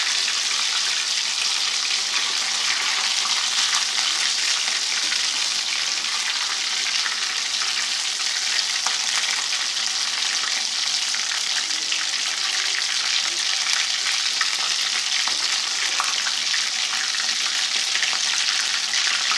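Batter-dipped potato samosa pinwheels deep-frying in hot oil in an aluminium wok: a steady sizzle with small crackles, while a slotted metal spatula stirs and turns them in the oil.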